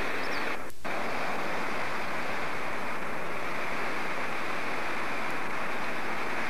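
Steady rushing of a shallow river running over a stony riffle, briefly dropping out a little under a second in.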